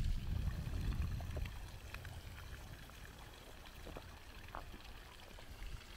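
Spring-fed garden stream trickling and splashing as it runs down from one pool to the next, with a low rumble in the first second or so.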